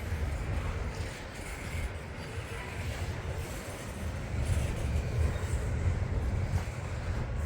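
Canadian National double-stack freight train rolling past, a steady low rumble of railcars on the track.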